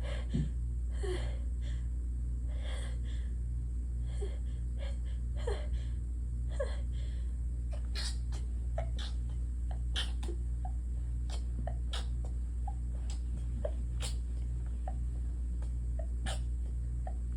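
A heavily congested woman's gasping in-breaths and stifled sneezes, forced out through her mouth because her nose is blocked. A steady low hum runs underneath, and the second half holds a string of short, sharp clicks.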